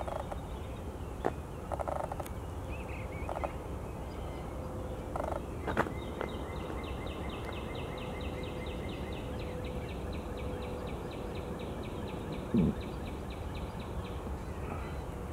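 Birds calling in spring woodland over a steady low background rumble: a few short calls in the first half, then a long, even trill of rapid notes through the middle, with one short, louder low call near the end.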